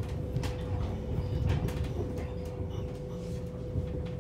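Cabin noise aboard a moving Alstom Coradia iLint hydrogen fuel-cell train: a low rumble from the running gear with a steady hum, and short clicks here and there.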